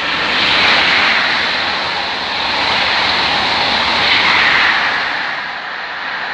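A train passing the platform, its wheel-on-rail and running noise swelling to loud peaks about a second in and again about four seconds in, then easing off near the end.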